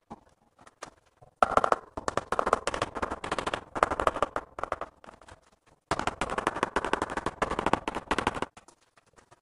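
Rubber mallet tapping a ceramic wall tile in rapid strings of blows, bedding it into the tile adhesive. Two long runs of quick taps, one starting about a second and a half in and another about six seconds in, with a few single knocks between.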